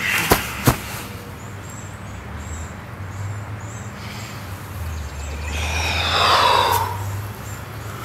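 Two sharp knocks as a man drops onto grass, then open-air ambience: faint high chirps repeating about twice a second over a steady low rumble. A louder sound swells and fades about six seconds in.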